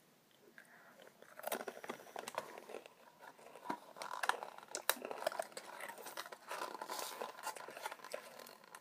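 Irregular small crunches, clicks and crinkles: Koala's March chocolate-banana biscuits being chewed while the cardboard snack box is handled. It starts about a second in.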